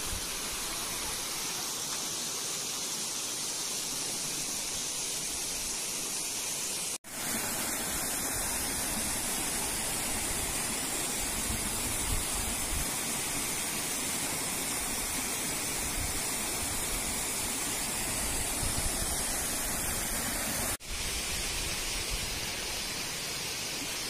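Mountain stream rushing over rocks and small cascades, a steady rush of water. It drops out for an instant twice, about seven seconds in and near the end.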